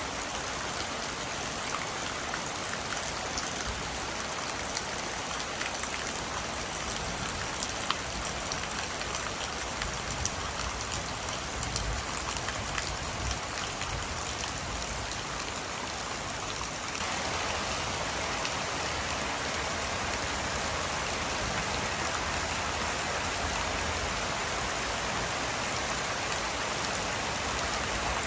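Steady rain falling on leafy foliage, a continuous hiss with scattered drip ticks. A little past halfway it steps up slightly louder and more even.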